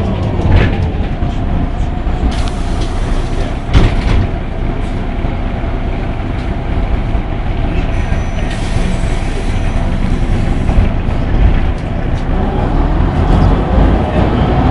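Ikarus 260 city bus on the move, heard from inside: its diesel engine running under steady road noise with small rattles, and a sharp knock about four seconds in.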